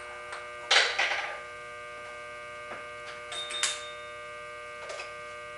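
Metal clinks and clatter of a boring bar being handled and taken out of a horizontal boring mill setup: a burst about a second in, another around three and a half seconds, and a light knock near the end. Under it runs a steady machine hum made of several steady tones.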